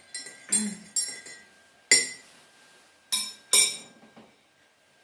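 Metal teaspoon clinking against a ceramic coffee mug while stirring: about five sharp, ringing clinks at uneven intervals, the loudest about two seconds in.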